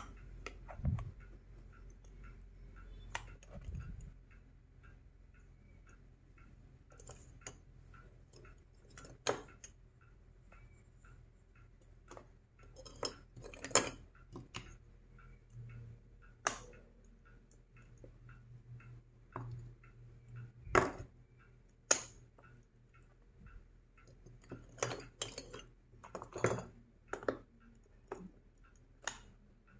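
Plastic magnetic stick-and-ball construction toy pieces clicking together as they snap into place and tapping as they are set down on a table: scattered, irregular sharp clicks with quiet stretches between.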